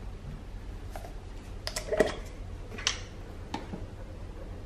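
A metal spoon clinking and scraping in a plastic blender cup as jam is spooned in, giving a handful of light clicks spaced over a few seconds.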